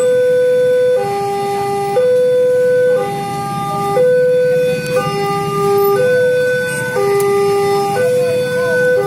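Railway level-crossing warning alarm sounding its electronic two-tone signal, switching between a higher and a lower tone about once a second, warning that a train is approaching and the crossing is closed.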